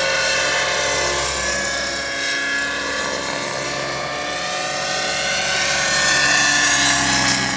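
Radio-controlled Hirobo SDX helicopter flying 3D aerobatics, its rotor whine running steadily and gliding up and down in pitch as it manoeuvres. It grows louder near the end.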